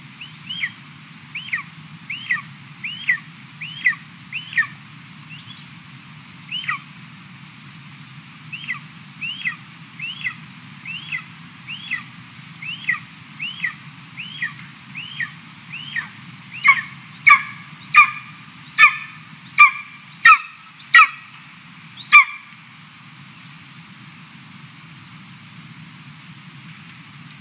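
Golden eagle chick giving a long series of high, thin food-begging whistles while being fed. Each note slides downward, repeating about one and a half times a second, with a louder run of calls that stops a few seconds before the end.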